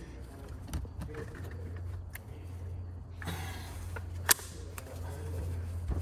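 Hand work on a yoke steering wheel assembly: light clicks and handling noises, with one sharp click about four seconds in, over a steady low hum.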